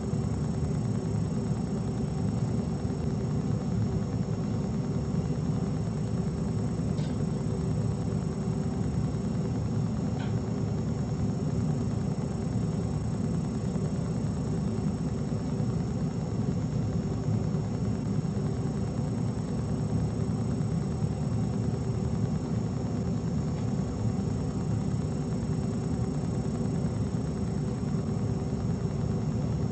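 Steady low hum and rumble of room noise with a few faint steady whines above it, unchanging throughout. There are two faint brief high sounds, about seven and ten seconds in.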